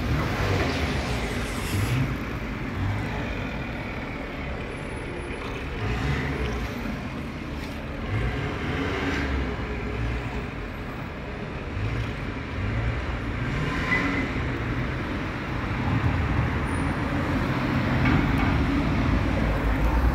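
Road traffic noise: a steady low rumble of passing vehicles, with engines now and then rising in pitch as they pull away.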